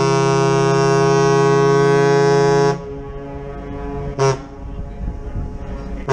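The Chi-Cheemaun ferry's ship horn sounds a long deep blast that cuts off about three seconds in, followed by two short blasts about two seconds apart.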